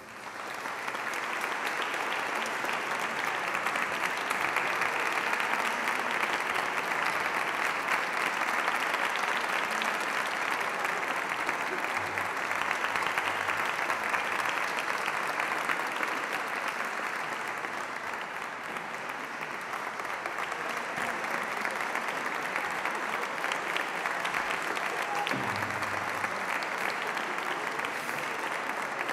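Audience applauding steadily and at length.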